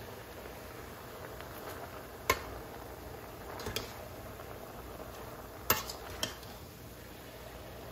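A metal slotted spoon stirs spinach in a stainless steel saucepan, clinking sharply against the pan about four times, with the loudest knock a little after halfway.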